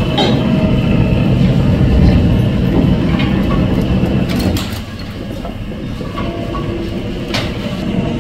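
A metal planer's single-point tool cutting a cast-iron lathe bed casting: a loud, rough, steady grinding scrape with scattered sharp ticks. About five seconds in it drops to a quieter running sound as the tool comes off the end of the cut.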